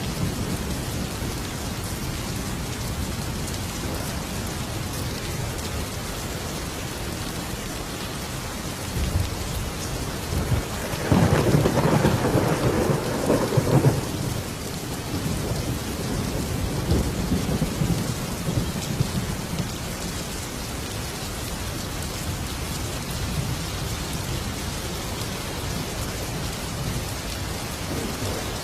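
Thunderstorm: steady heavy rain with a loud rumble of thunder about eleven seconds in that lasts around three seconds, then a fainter rolling rumble a few seconds later.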